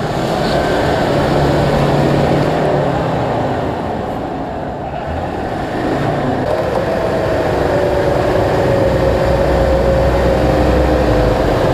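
Off-road 4x4's engine running hard under load, with a noisy wash over it; its pitch sags in the middle and climbs again near the end.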